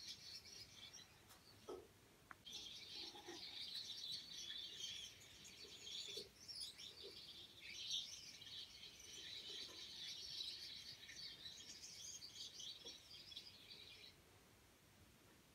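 Gouldian finches singing and chattering softly: a thin, buzzy, high twittering that breaks off briefly about two seconds in and stops shortly before the end.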